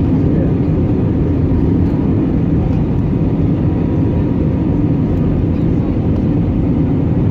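Steady cabin noise of an Airbus A320neo airliner in flight: an even, deep rush of airflow and CFM LEAP-1A engine noise, with a faint steady whine.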